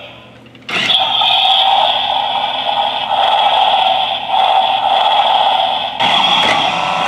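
Battery-operated Road Rippers Rhino toy monster truck running, with its motor and electronic engine sounds. The sound starts abruptly under a second in, holds steady, and breaks briefly near the six-second mark.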